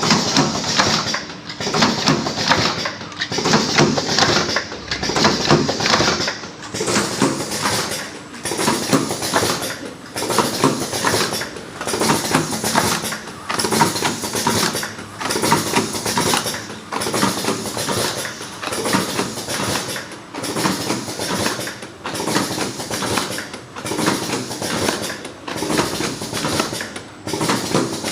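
Flow-wrapping machine and automatic cartoning machine running in production, a dense clicking and clattering that repeats in an even cycle about every one and a half seconds.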